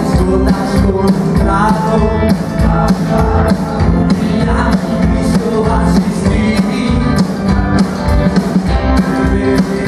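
Live rock-and-roll band playing: a drum kit keeping a steady beat under electric guitars and an upright double bass.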